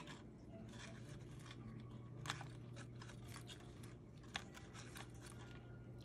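Faint crackling and small clicks from a soldering iron pressed on copper desoldering braid over the pins of a surface-mount chip, the braid soaking up solder from the joints. A low steady hum runs underneath.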